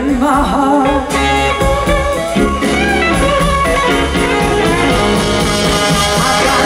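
Live blues band playing: an electric guitar plays bending lead lines over bass and drums, with no singing.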